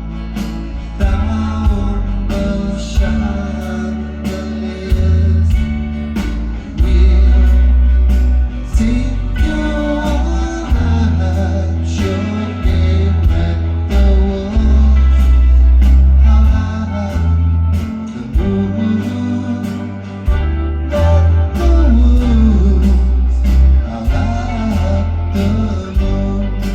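Live rock band playing a song: electric guitar, heavy bass and a steady drum beat, with singing over the top.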